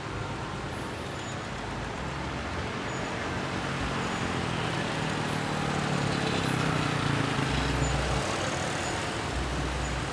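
Road traffic noise with a heavy vehicle's engine running. It grows louder from about halfway through, as if the vehicle is passing close by.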